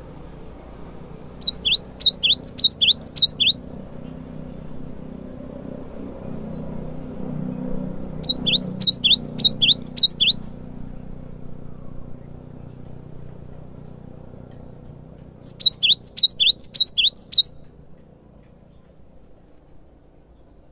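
Cinereous tit (gelatik batu) singing: three bouts of quick, high repeated notes, each bout about two seconds long with some nine notes, several seconds apart.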